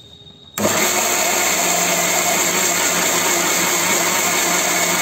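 Electric mixer grinder with a small steel chutney jar switching on about half a second in and running steadily, grinding peanut chutney.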